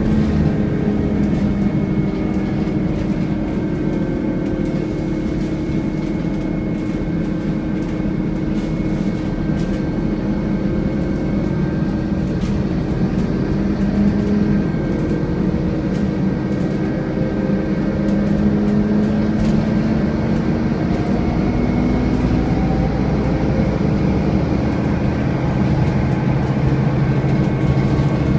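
Scania N230UD double-decker bus running under way, its engine note slowly rising and falling in pitch with a steady high whine over it: the vacuum-cleaner-like 'hoovering' sound these buses are known for.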